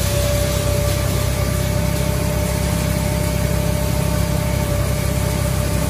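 Tractor engine running steadily at an even speed, with a thin steady whine over it.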